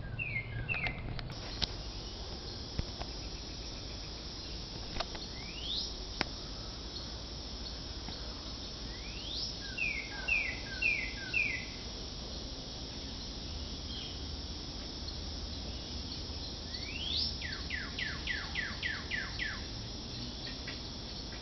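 A songbird calling repeatedly. Each phrase is a quick rising whistle followed by a run of short falling notes, about four in the middle and about eight near the end, over a steady outdoor hiss.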